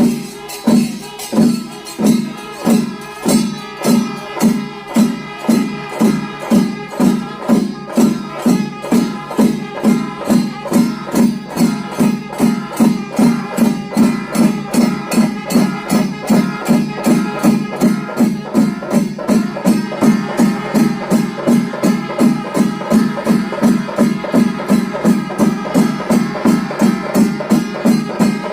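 Chenda melam: a Kerala temple ensemble of chenda drums with ilathalam hand cymbals, playing a steady pounding beat of about two strokes a second that gradually quickens.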